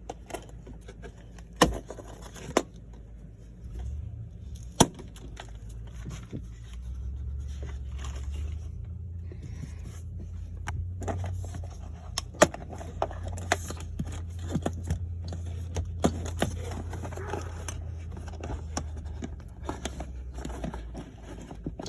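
Plastic retaining tabs on a Polaris Ranger's air filter box being pried and popped open by hand: scattered sharp clicks and snaps with scraping and handling noise, over a low steady rumble.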